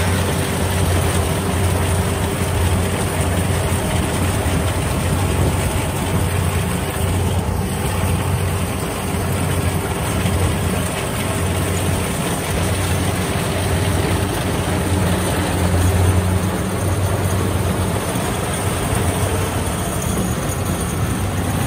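Combine harvester's diesel engine running steadily with a low, even hum.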